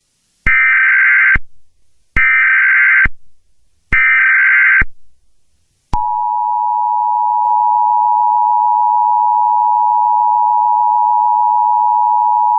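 Emergency Alert System alert header: three short bursts of SAME digital data tones, then about six seconds in the steady two-tone EAS attention signal begins and holds, the signal that an emergency alert message is about to follow.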